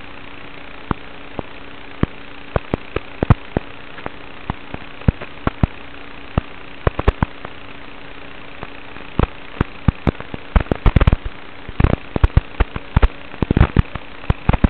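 Steady electrical hiss with a faint unchanging hum, broken by irregular sharp clicks and pops that come thicker and louder from about nine seconds in: static on the audio track of an FPV goggles' DVR recording.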